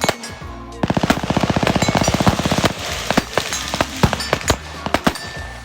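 A burst of rapid automatic gunfire, about fifteen shots a second for around two seconds, followed by scattered single and paired gunshots.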